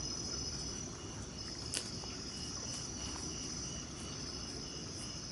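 Crickets and other night insects calling: a steady high trill, joined about halfway in by a lower chirp repeating about three times a second, with one sharp click just under two seconds in.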